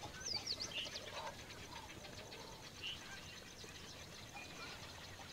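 Faint wild birdsong: a few quick, high, falling chirps about half a second in, then scattered short calls over a steady, faint high trill.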